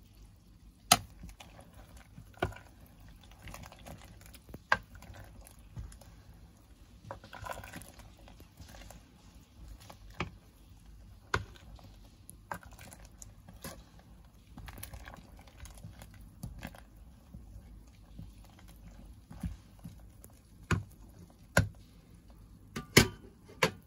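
A white plastic ladle stirring vegetables in a simmering pot of sinigang, making scattered sharp clicks and taps against the pot, about a dozen of them spread irregularly, with a cluster near the end.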